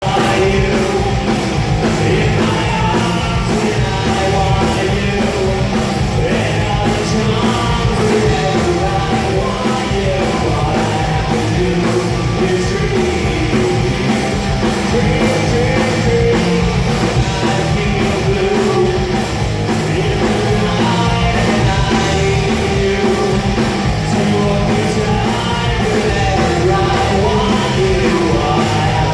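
Rock band playing loud punk rock with a singer over a fast, steady drum beat, during a sound check.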